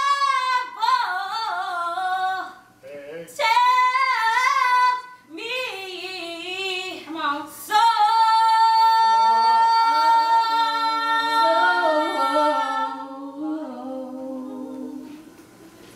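Women singing a worship song into microphones, voices wavering with vibrato in short phrases. About eight seconds in, a long held high note with a second voice moving beneath it, fading toward the end.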